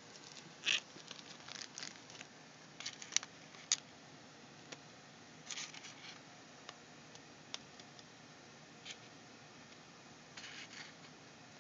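Faint, scattered clicks and short scrapes of a laptop's plastic case being handled, with a few sharper ticks about three seconds in.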